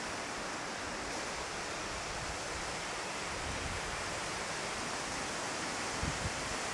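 Steady, even outdoor background hiss with no speech, with a faint low hum through the middle and a couple of brief low thumps near the end.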